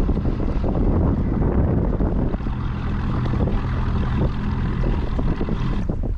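Wind buffeting the microphone. From about two seconds in, a steady engine drone from a motor sits underneath it.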